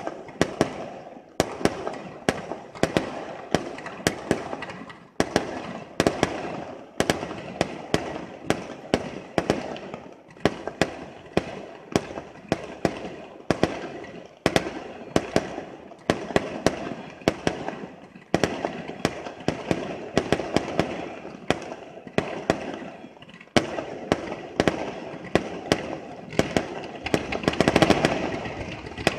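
Fireworks display: a quick string of bangs from bursting aerial shells, several a second, with crackling between them. Near the end the bangs and crackling grow louder and denser.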